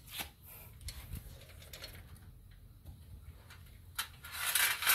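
Metal links of a motorcycle roller drive chain clicking lightly as the chain is handled and fed onto the front sprocket, then a louder rattle of links sliding and knocking about four seconds in.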